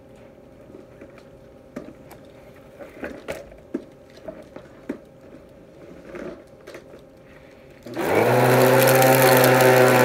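Scattered light clicks and knocks as an upright vacuum cleaner is handled, then about eight seconds in its motor switches on, rising briefly in pitch as it spins up and settling into a loud, steady hum with a strong hiss of air.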